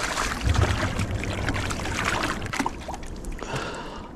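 Water splashing and sloshing against the rocks as a hooked walleye thrashes in the shallows at the bank, with short irregular splashes.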